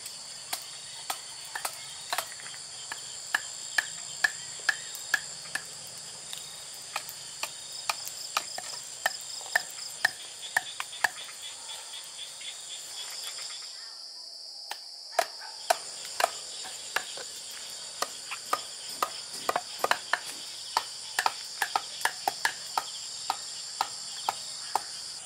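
Sharp wooden knocks, one to two a second, as bamboo stakes are struck with a wooden mallet to drive them into the ground, over a steady chorus of crickets.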